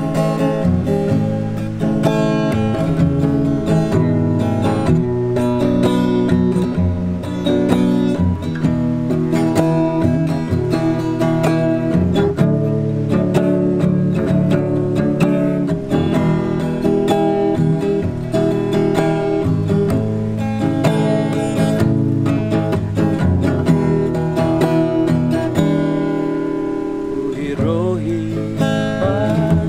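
Acoustic guitar strummed steadily, playing chords as a song's accompaniment.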